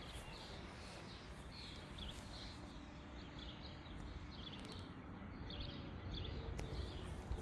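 Small birds chirping, a string of short high chirps repeating irregularly, over a low steady rumble.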